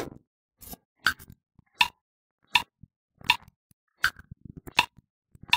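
Metronome click-track count-in from the backing-track app: seven short, evenly spaced pitched ticks, about one every three-quarters of a second, with a single tap at the very start.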